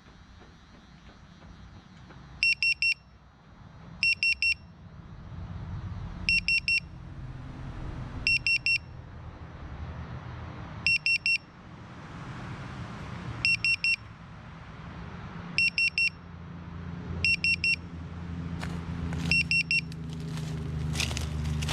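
Lost-drone buzzer on an FPV quad beeping in groups of three short high beeps, about every two seconds, the alarm of a downed quad. Under it a low rumble grows louder, with sharp rustling clicks near the end.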